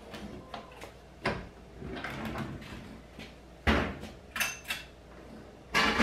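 A few short knocks and clatters of household things being handled, spaced out, with the sharpest knock about two-thirds of the way in.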